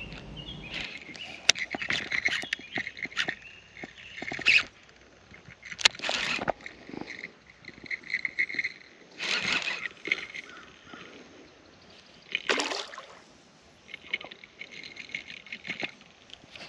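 Lakeside night ambience: frogs calling in pulsing trains of high chirps, with three swishes of water about six, nine and twelve seconds in and scattered sharp clicks from the kayak and tackle.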